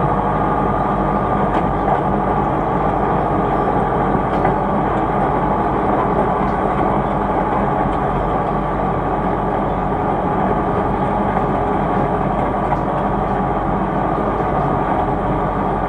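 Logging truck's engine running steadily while under way, with faint knocks and rattles now and then.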